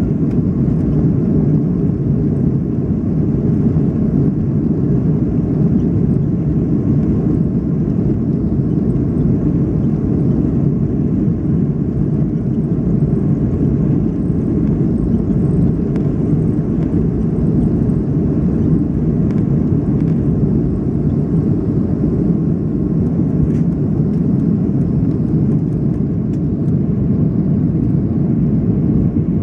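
Steady low rumble heard inside the cabin of a Boeing 737-500 under way, from its CFM56-3 engines and the aircraft's movement. It holds even throughout.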